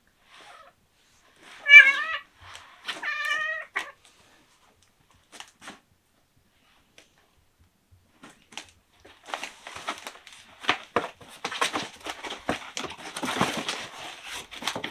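A cat gives two wavering meows, a second apart, about two and three seconds in. Later comes a dense run of scratching and rustling as a cat claws at a corrugated cardboard scratcher pad inside a cardboard box.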